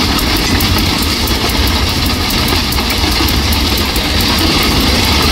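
Ballast regulator's rotating sweeper brush spinning along the track, flinging ballast stones off the sleepers and rail fastenings over the steady running of the machine's diesel engine. The noise is loud and even, with no pauses.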